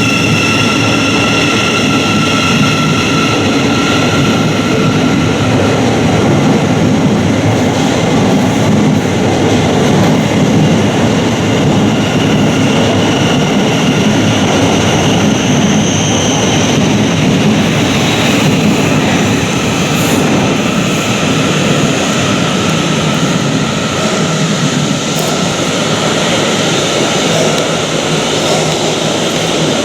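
Thameslink Class 700 Desiro City electric multiple unit running along the station platform: a loud, steady rumble of wheels and running gear. High steady tones are strongest in the first few seconds and then fade.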